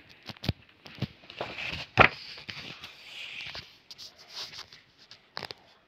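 Paper rustling and light clicks and knocks from a book's pages being handled, with the sharpest knock about two seconds in.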